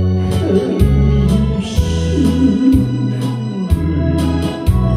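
Instrumental break in the accompaniment to a trot song: a melody line over a steady bass and a drum beat of about two strokes a second, with no singing.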